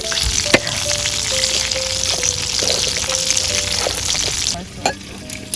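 Chicken pieces deep-frying in hot oil: a steady sizzle that drops away sharply about four and a half seconds in. Background music plays a slow melody over it, with a couple of sharp clicks.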